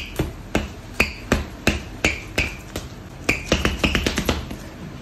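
Nike LeBron 20 basketball shoes' rubber soles stamping and squeaking on a tiled floor: sharp taps about three a second, then a quicker flurry of taps and squeaks near the end.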